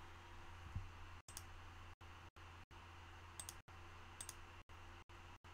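Faint computer mouse left-button clicks, a few quick pairs of clicks, over a low steady hum.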